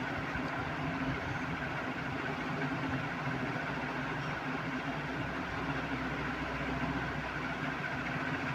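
Sanyo 56-inch industrial ceiling fan (model EF-A56C) running steadily: a low motor hum under an even rush of air from the blades.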